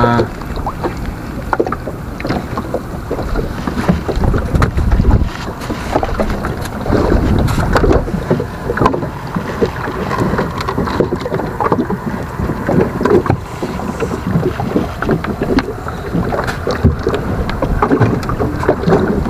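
Wind buffeting the microphone over water moving against a small boat's hull, with many short irregular knocks and rubbing from fishing gear being handled close by.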